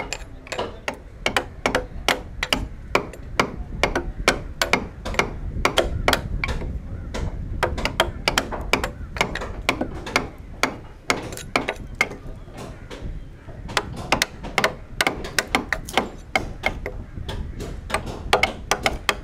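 Mallet striking a wood chisel driven into the plank of a wooden boat hull: a steady series of sharp knocks, about two to three a second.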